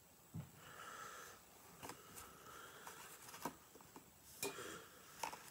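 Near silence in a small room, broken by a few faint clicks and light rustles of small objects being handled.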